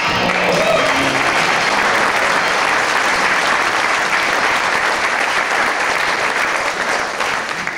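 A live theater audience applauding steadily, the clapping thinning out near the end.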